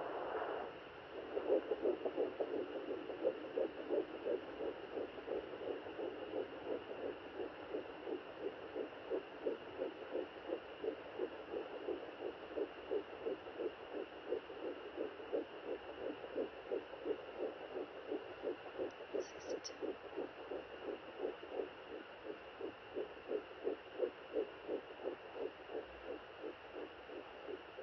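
Sonoline B handheld fetal Doppler playing a fetal heartbeat through its speaker: fast, even pulses, a little over two a second, starting about a second in.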